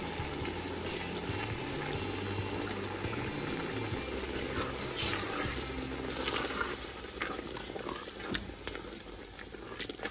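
Tomato meat sauce bubbling in a large aluminium pot, with a wooden spoon stirring and scraping through it from about halfway on. Soft background music with a low bass line runs underneath.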